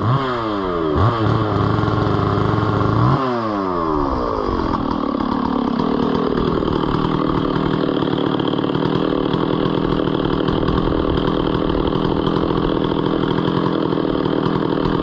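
An engine revs down sharply twice in the first few seconds, then runs steadily at a constant speed.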